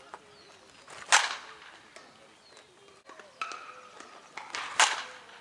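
Softball bat hitting a ball twice, about three and a half seconds apart, each a sudden sharp hit with a short ring.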